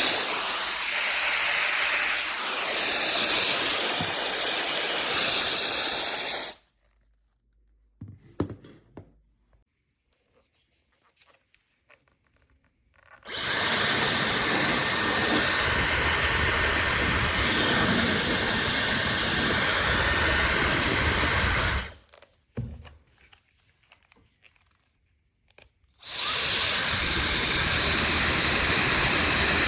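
Mini ionic hair dryer running: three spells of steady blowing air and motor whine, each several seconds long, switched off in between with near silence and a few faint clicks.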